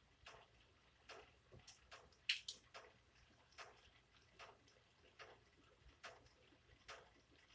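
Rain dripping, single drops landing one at a time as faint ticks, uneven at first and then roughly once a second, with no steady rain hiss.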